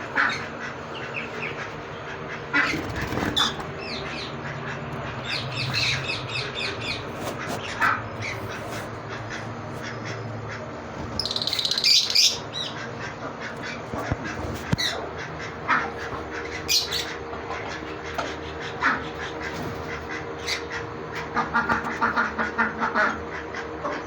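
Pet lovebirds and plum-headed parakeets calling with short, repeated chirps and squawks, with a louder harsh squawk about halfway through and a quick run of chirps near the end.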